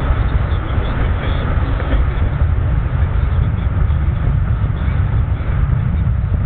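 Rebuilt Chevy 350 V8 in a 1978 Pontiac Firebird Formula running steadily while the car drives along, heard from inside the cabin as a low rumble mixed with tyre and wind noise.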